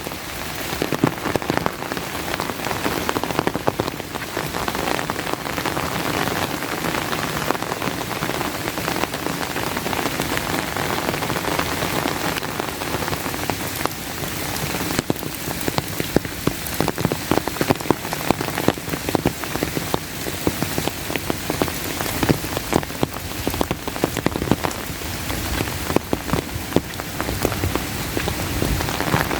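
Steady rain falling, with many sharp close drop hits on an umbrella overhead.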